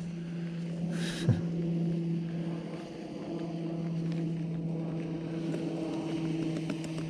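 Snowmobile engine running at steady revs, a constant low hum that does not change in pitch. A short rustle comes about a second in.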